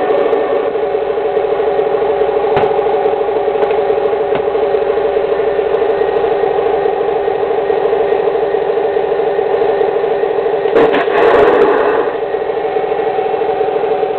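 Radio-controlled model tank's sound unit playing a steady engine-idle effect through its small speaker. A louder, noisier burst breaks in about eleven seconds in.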